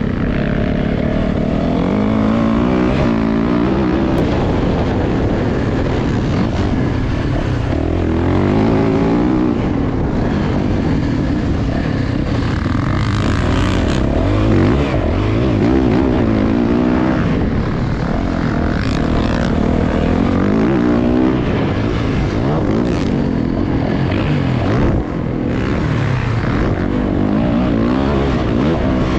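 Motocross dirt bike engine heard from on board while riding the track, its pitch climbing and dropping over and over as the throttle is opened and shut through the corners and jumps, with wind rushing over the microphone.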